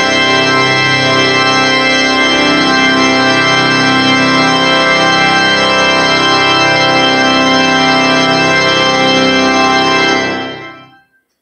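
Church organ playing sustained full chords, the closing music of the service. The final chord is released about ten seconds in and dies away over roughly a second.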